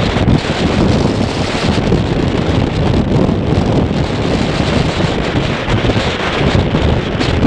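Strong wind buffeting the microphone: a steady, gusting low rumble with hiss above it.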